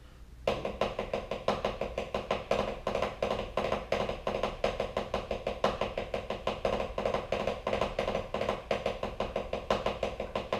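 Drumsticks on a practice pad. From about half a second in comes a continuous run of fast, even strokes with regularly recurring accents: a rudiment exercise that joins long rolls with three-note rolls played in triplets.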